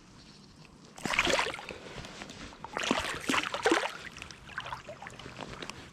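Water splashing in two bursts, about a second in and again around three seconds in, as a hooked chub is drawn through the shallows to the bank.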